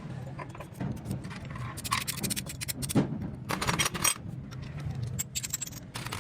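Metal tools and motorcycle engine parts clinking and scraping in irregular knocks during an engine teardown, over a steady low hum.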